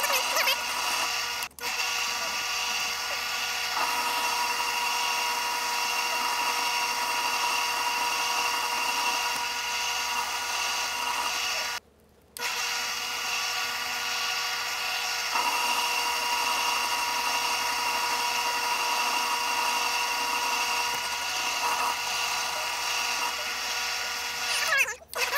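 Grizzly G0768 mini metal lathe running, its motor and spindle giving a steady multi-pitched whine while the cutting tool turns down a 2-inch steel bar. The sound breaks off abruptly twice for a moment and then resumes.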